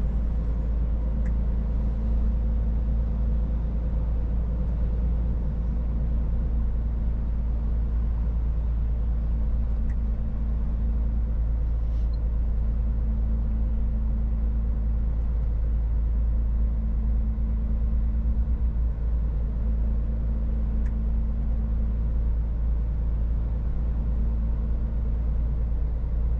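Scania S450 truck on the move, its straight-six diesel engine running at a steady cruise. Heard from inside the cab as an even low drone with road and tyre noise, and a few faint ticks.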